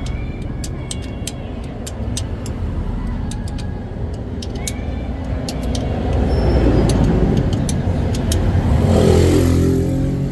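A motor vehicle's engine rumbles steadily and grows louder about six seconds in, with scattered short sharp clicks over it.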